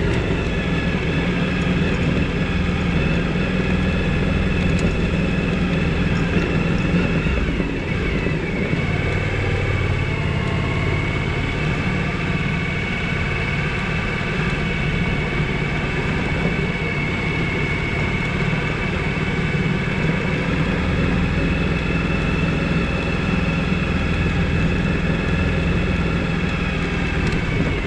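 V-twin adventure motorcycle engine running at a steady pace, its note dropping and changing about eight seconds in before settling again.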